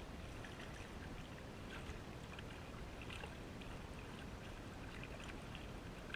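Soft, scattered splashes and trickles of a kayak paddle blade sculling in the water, over a steady low rumble.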